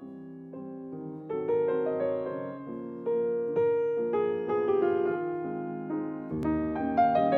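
Background piano music: single notes and chords struck one after another, each fading as the next begins.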